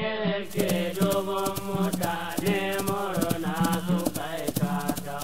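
Traditional Hausa song (wakokin dauri): a voice chanting over a steady low drone, with a quick clicking percussion beat coming in about half a second in.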